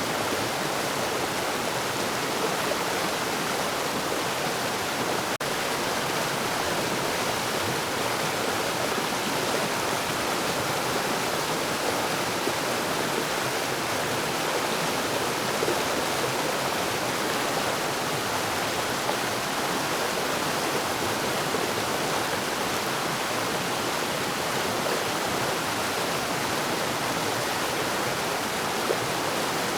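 Forest waterfall: water falling and rushing in a steady, unbroken noise.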